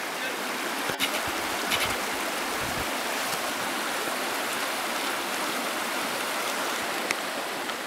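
Steady rush of running water from a stream, with a few light clicks about a second in, near two seconds and near the end.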